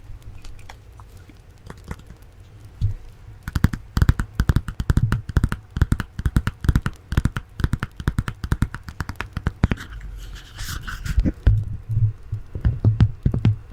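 Fast ASMR tapping: rapid finger taps close to the microphone, each with a sharp click and a low thud. It starts sparse, then becomes a dense, quick run of taps from about three seconds in, with a brief scratchy hiss a little after ten seconds.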